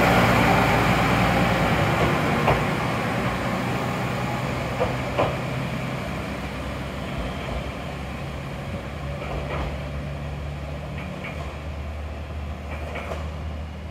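Hitachinaka Seaside Railway MiKi 300 diesel railcar pulling away from the platform, its engine hum and wheel noise fading steadily as it draws off, with a few sharp clicks a couple of seconds and about five seconds in.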